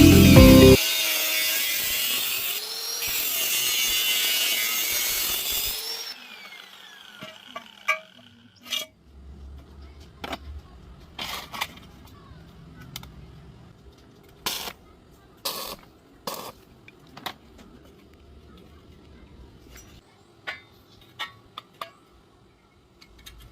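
Background music cutting off, then a few seconds of steady hissing tool noise. After that, scattered sharp taps and knocks with quiet between them.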